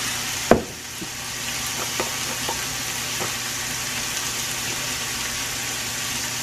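Ground beef sizzling as it fries in a hot pan and is stirred with a silicone spatula, a steady hiss. A sharp knock comes about half a second in, followed by a few lighter taps.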